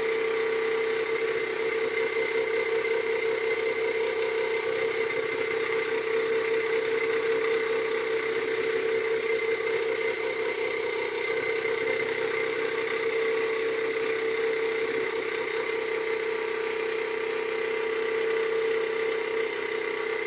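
Small brushless DC motor driven by an electronic speed controller, spinning at a constant speed with a steady whine and a fainter higher tone above it.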